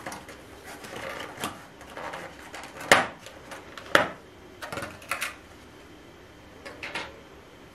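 Thin clear plastic lid of a takeout sushi tray crackling and clicking as it is unclipped from the black plastic base and lifted off, with two sharp snaps about three and four seconds in.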